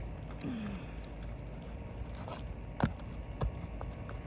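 A tool working a roofing nail out from under a lifted shingle: scraping and sharp metal clicks, the loudest nearly three seconds in and a smaller one just after. A steady low rumble runs underneath.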